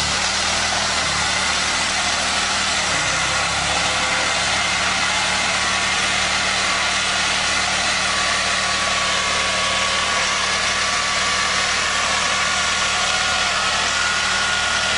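An SUV driving on a bare steel wheel rim: the rim grinds and scrapes steadily on the asphalt in a loud, even hiss, over the steady hum of the engine.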